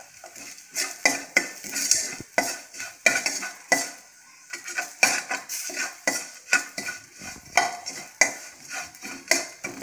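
Steel spoon stirring and scraping around a stainless-steel pan, with irregular clinks against the metal, over a light sizzle of chopped garlic and green chillies frying in oil with turmeric.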